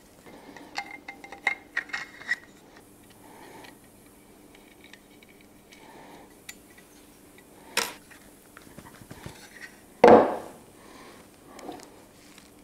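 Small hardware being handled: nuts and metal parts clicking and clinking against an aluminium T-track and 3D-printed plastic brackets on a wooden workbench, with a louder knock about ten seconds in.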